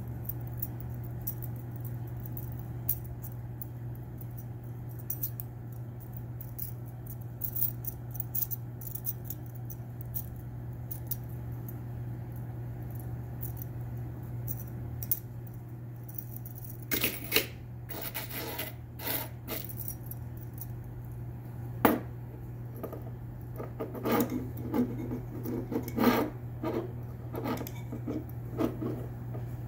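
Small metal clicks, rattles and rubbing as the folding steel pot-support arms of an AOTU compact canister camping stove are handled and swung open, with a louder run of clatter a little past halfway and one sharp click soon after. A steady low hum runs underneath.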